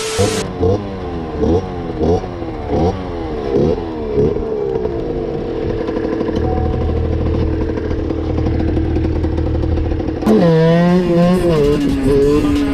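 A brief hiss of static, then a two-stroke motorcycle engine revved in quick repeated blips, about eight in four seconds, before it settles to a steadier speed. About ten seconds in, the sound changes abruptly to the Fantic Performance 50 motard's two-stroke running under throttle, its pitch wavering up and down.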